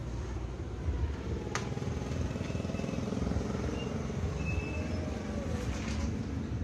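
A motor running with a steady low rumble, and a single sharp click about one and a half seconds in.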